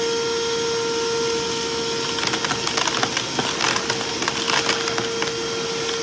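Bauer 3.5-gallon cordless wet/dry shop vacuum running with a steady whine as it sucks up stainless steel screws, which clatter through the hose in a burst of rapid clicks from about two seconds in until about five seconds in.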